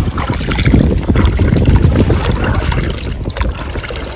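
Wind buffeting the microphone: a loud, gusty low rumble that rises and falls.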